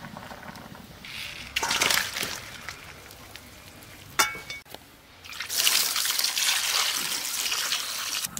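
Water pouring and trickling: a short splash about two seconds in, then a longer steady pour from about five seconds in that cuts off suddenly at the end. A single sharp clink comes just after four seconds.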